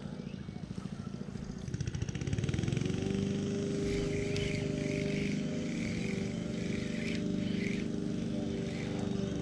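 An engine speeds up about two seconds in, its pitch rising, then runs at a steady pitch.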